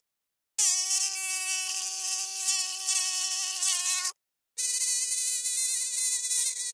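Flying insect's wings buzzing, a high steady whine with a slight wavering. It starts about half a second in and cuts off after about three and a half seconds; after a short gap a second, higher-pitched buzz begins.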